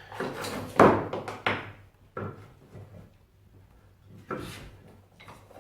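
A few hard knocks and clatters of wooden blocks being handled and set down on a workbench, the loudest about a second in.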